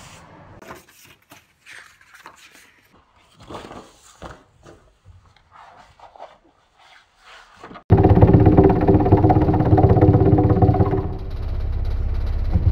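Sheets of paper rustling and sliding as they are handled by hand. About eight seconds in, a vibrating paper jogger switches on with a loud, steady vibrating hum and rattle, settling the stack of sheets. It drops somewhat in level about three seconds later.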